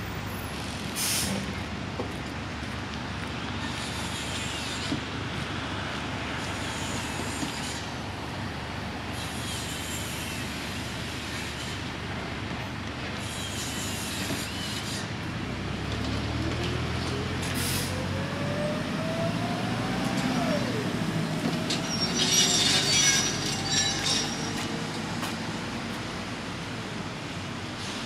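Steady construction-site and city din with a heavy diesel engine working up from about halfway. Its pitch climbs for a few seconds, then drops. A loud burst of hissing and squealing follows about three-quarters of the way through.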